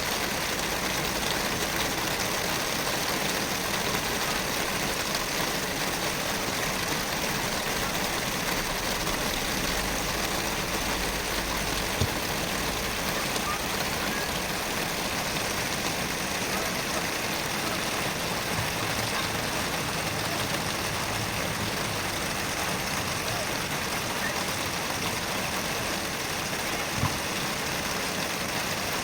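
Heavy rain falling in a steady, even hiss, with two short thumps: one about twelve seconds in and one near the end.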